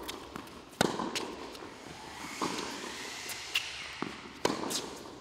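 Tennis ball struck back and forth by racquets in a baseline rally, with bounces on the hard court between strikes. The two near strikes, about a second in and near the end, are loudest, and each hit echoes off the walls of the enclosed hall.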